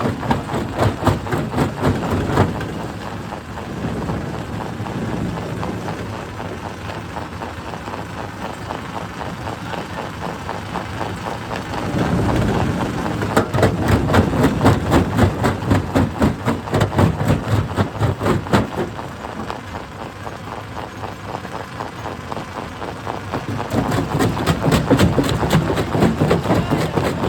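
Hydraulic rock breaker hammering against stone in rapid, evenly repeated blows, in heavier stretches near the start, through the middle and near the end, over the excavator's running engine.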